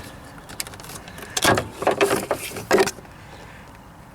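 Plastic clicks and knocks, about five over a second and a half, as a plastic part behind the Seat Ibiza's headlight is pulled away and unclipped, with quieter handling noise after.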